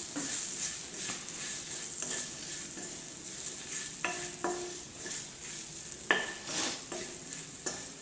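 A wooden spatula stirs and scrapes green chillies around a metal kadhai, over a light sizzle of frying. The spatula knocks against the pan a few times, about four and six seconds in and near the end.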